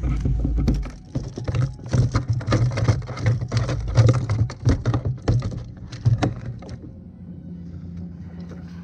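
A large fish flapping and thrashing on the plastic deck of a fishing kayak: a rapid, irregular run of slaps and thuds that dies away about six and a half seconds in.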